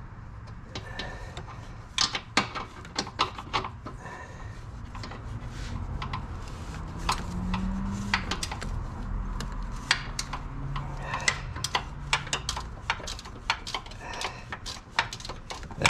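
Hand wrench working a bolt on a car's transmission mount: irregular metal clicks and taps, with a steady low rumble underneath.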